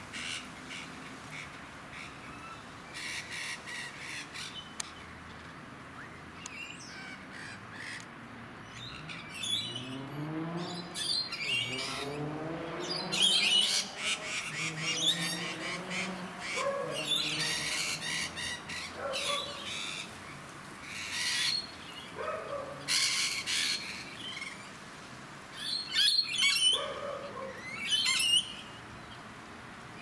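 Rainbow lorikeets screeching in short, shrill bursts, busier and louder from about ten seconds in. A lower sound rising in pitch runs underneath for several seconds in the middle.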